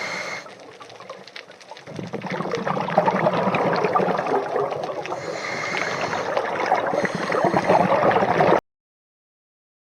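Underwater bubbling of a scuba diver exhaling through the regulator: a long, dense stream of bubbles starts about two seconds in and cuts off abruptly near the end.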